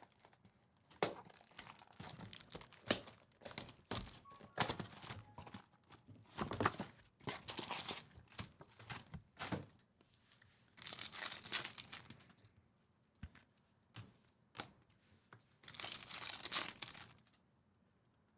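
Trading-card pack wrappers being torn open and crinkled, with cards handled and tapped in between. There are many short rustles and clicks, and two longer tearing, crinkling stretches in the second half.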